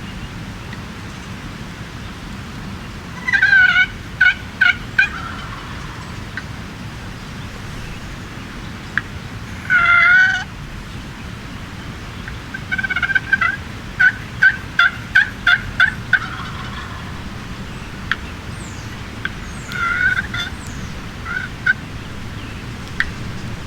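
Wild turkey calling in several bouts of short repeated notes: a run about three seconds in, a single longer call near ten seconds, a longer run of evenly spaced notes from about twelve to sixteen seconds, and a few more around twenty seconds.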